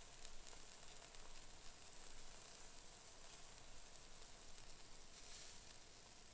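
Rack of spare ribs sizzling faintly on a small portable grill: a steady soft hiss with tiny crackles.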